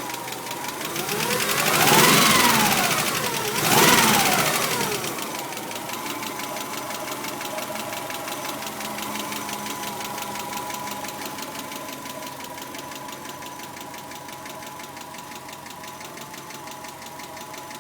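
1991 Subaru Legacy's flat-four engine revved twice, the pitch rising and falling, then settling to a steady idle, with a fast, even ticking running through it. The owner suspects a hydraulic lash adjuster on the driver's side as the cause of the tick.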